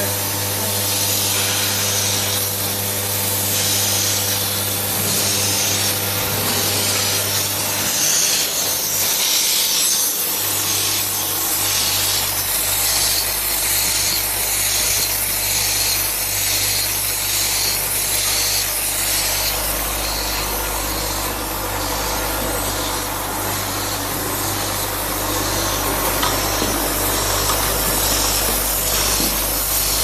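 Automatic syringe assembly machine running: its rotary star-wheel turrets turning with a steady mechanical whir, a regular repeating clatter and a hiss of pneumatic air. A low hum underneath drops in pitch about ten seconds in.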